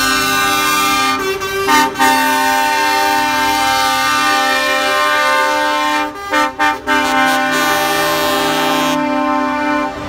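Lorry air horns sounding in long, held blasts, several pitches together, broken by a brief gap about two seconds in and a few short stabs around six to seven seconds in, over low truck engine rumble.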